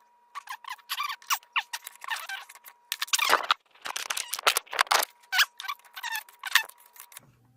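Steel lock pick scratching and clicking against the pins inside a padlock's keyway, in quick irregular strokes, over a faint steady high tone.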